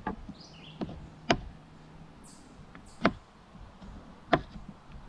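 Chef's knife knocking down onto a cutting board while slicing a tomato: three sharp knocks spaced about a second and a half apart, with a few lighter taps between them.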